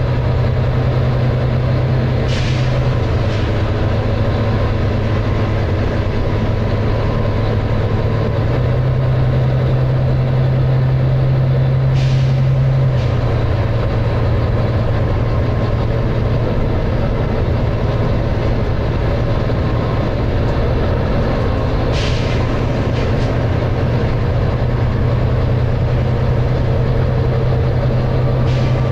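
Volvo B9TL double-decker bus's six-cylinder diesel engine running steadily under load, heard from inside the bus, with a short hiss of air from the bus's air system about every ten seconds.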